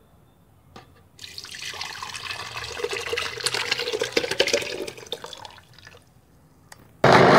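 Cooled mint syrup (boiled mint leaves, sugar and water) poured into a plastic blender jar, a splashing pour lasting about four and a half seconds. Just before the end a much louder steady sound starts abruptly.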